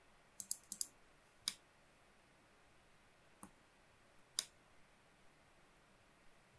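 Computer mouse clicking: four quick clicks within the first second, then single clicks spaced a second or two apart, from the mouse buttons and scroll wheel.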